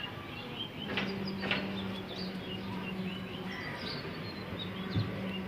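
Birds chirping in short, scattered calls over a steady low hum that sets in about a second in, with a couple of faint clicks and a soft thump near the end.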